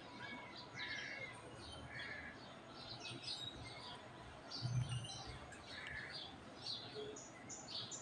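Faint, scattered bird chirps in the background, with one low thump about halfway through.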